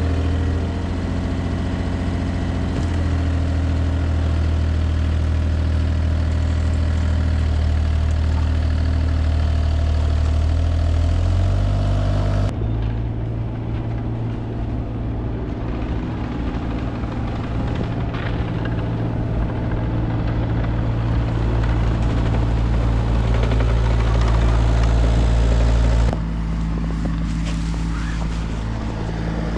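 Bobcat excavator's diesel engine running steadily, its pitch shifting a few times, with abrupt changes in tone about twelve seconds in and again near the end.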